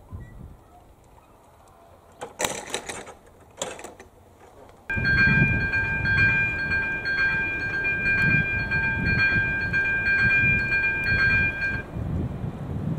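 Level-crossing electronic warning bell ringing a fast, repeated high chime while the red lights flash and the barriers lower. It starts suddenly about five seconds in and stops about a second before the end, once the barriers are down. Before it there are two brief noises.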